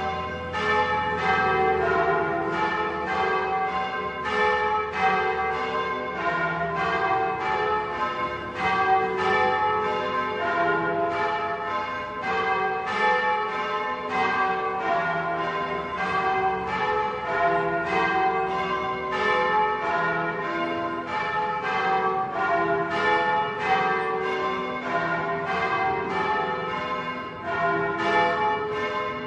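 Several church bells of Bologna ringing together in a dense, continuous run of overlapping strikes, about two or three a second, their notes ringing on into one another.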